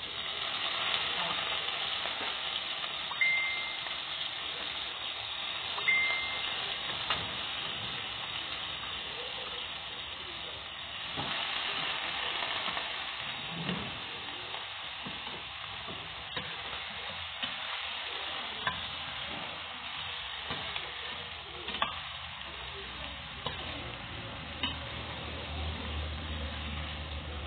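Chicken pieces sizzling in hot oil in a stainless steel pan, the sizzle starting as they go in. A metal utensil stirs them, clinking and scraping against the pan, with two short metallic rings a few seconds in.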